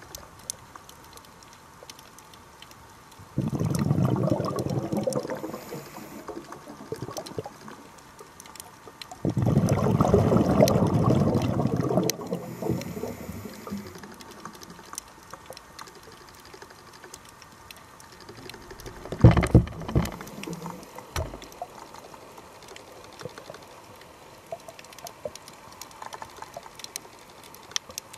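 Underwater sound of a scuba diver's regulator exhaling: two long rushes of bubbles a few seconds apart, then a shorter, sharper burst about two-thirds of the way through. A steady scatter of fine clicks and crackles runs underneath.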